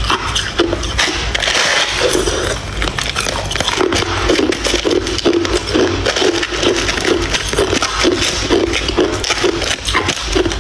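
Ice cubes crunched and chewed close to a clip-on microphone, a dense crackle of breaking ice with a chewing rhythm of a few crunches a second through the middle. A metal spoon scrapes and clinks through ice in a plastic tub.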